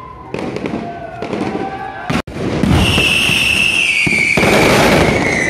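Beehive rocket tower barrage: dense crackling of many bottle rockets going off. About halfway through a loud shrill whistle comes in and slides slowly down in pitch over the crackle.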